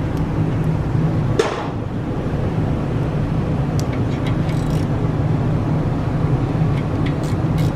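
Wrench and metal clinking as the 14 mm caliper bolts are refitted on a brake caliper: one sharp clank with a brief ring about a second and a half in, then a few lighter clicks. A steady low hum runs underneath.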